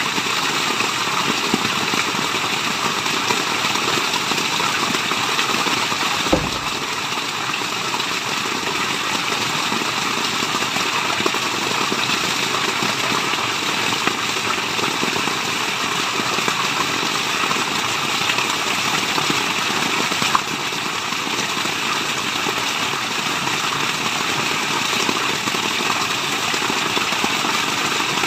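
Waterfall's steady, even rush of falling water, with one brief low thump about six seconds in.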